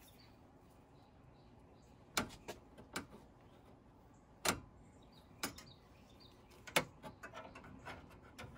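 Scattered sharp clicks and light knocks from a new thermostatic expansion valve and its copper capillary tube being handled against an evaporator coil. They come at uneven intervals from about two seconds in, with smaller taps near the end.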